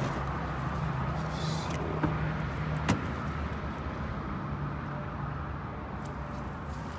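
A car door latch clicks once about three seconds in as the driver's door is opened, over a steady low hum.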